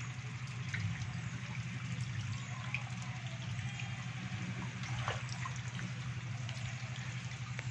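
Water trickling and sloshing in a shallow concrete tank of live stinging catfish, with a few small sharp splashes and a steady low hum underneath.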